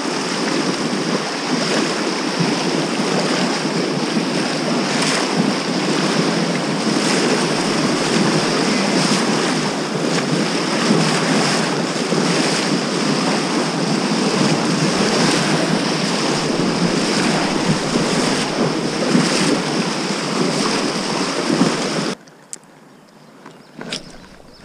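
Fast mountain-river water rushing loudly, close to the microphone, with irregular sharper splashes. It cuts off abruptly near the end.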